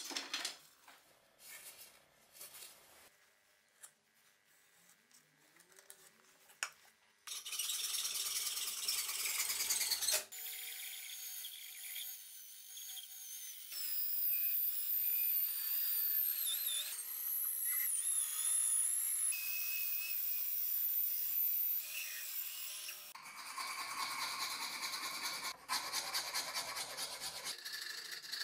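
Workshop tool sounds on a wooden axe handle. A few light clicks come first, then a brief burst of harsh noise. A drill then bores into the hardwood handle blank with a steady motor whine that wavers in pitch as it loads. Near the end come rhythmic strokes of a file working the handle.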